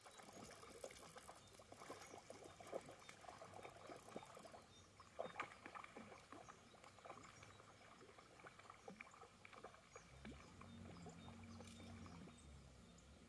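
Near silence: faint outdoor ambience with scattered light clicks, and a low hum coming in about ten seconds in.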